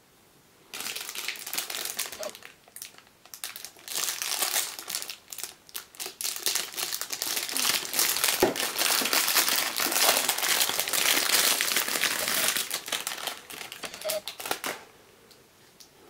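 Clear cellophane wrapping crinkling and crackling as it is handled and pulled off a hard plastic watch case, in quick irregular bursts with a few short pauses. It starts about a second in and stops shortly before the end.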